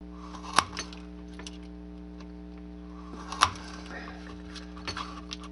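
Sharp clicks of a lever-action hobby chopper's blade cutting through a painted 1/8-inch wooden dowel into short lengths: two loud cuts about three seconds apart, then a few lighter clicks near the end, over a steady electrical hum.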